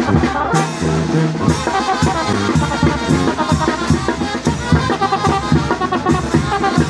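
Brass band playing live close by: sousaphone bass and horns over drums.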